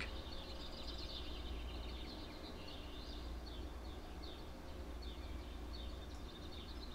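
Birds chirping repeatedly in short high notes, over a steady low rumble of outdoor background noise.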